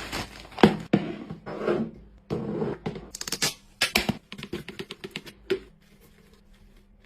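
Containers and packaging being handled: a run of knocks, clicks and short rustles, with a quick string of clicks a few seconds in, then quieter.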